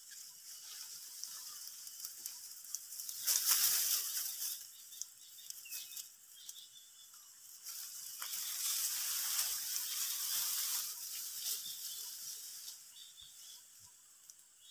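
Wind rustling through ripe rice stalks and leaves, a hissy rustle that swells in two gusts, briefly about three seconds in and again for a few seconds from about eight seconds.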